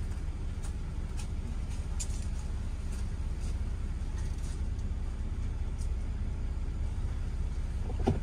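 Mercedes-Benz W204 C-Class engine idling steadily, with a few faint light ticks and one short thump just before the end.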